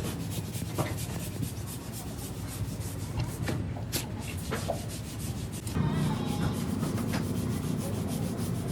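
Quick, repeated rubbing or scraping strokes on a part during a diesel engine rebuild, growing louder about six seconds in, over a steady low hum.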